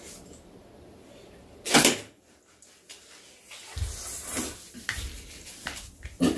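Eating noises as noodles are lifted with metal chopsticks and slurped: uneven small clicks, rustles and mouth sounds, with one loud short noise about two seconds in.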